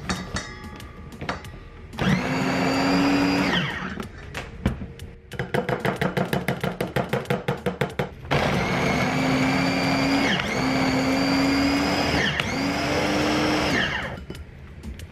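Breville electric mini food chopper pureeing onion, garlic, ginger and peppers. Its motor runs in short press-and-release bursts: one run of about two seconds, then three longer runs back to back, each starting and stopping abruptly with a quick spin-up and wind-down.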